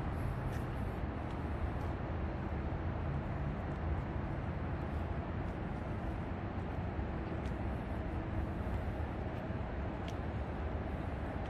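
Outdoor city ambience: a steady low rumble of traffic and general street noise, with a few faint clicks.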